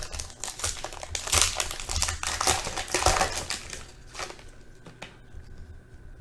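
Panini Prizm Football trading-card pack wrapper crinkling and tearing as it is opened by hand. The crinkling stops about four seconds in, leaving a faint steady high tone.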